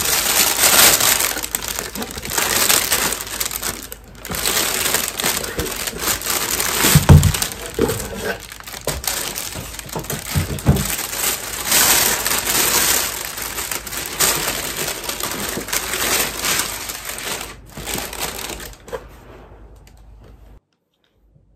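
Thin plastic bag crinkling and rustling as it is handled and pulled out of a cardboard box, with a few soft thumps. It cuts off suddenly near the end.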